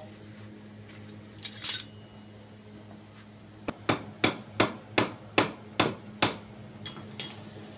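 A run of eight sharp hammer blows, about two or three a second, starting midway through, with a few lighter knocks before and after. A steady low hum runs underneath.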